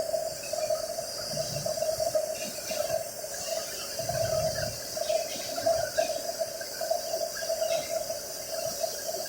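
Electric arc welding: the arc gives a steady crackling hiss over a pulsing hum.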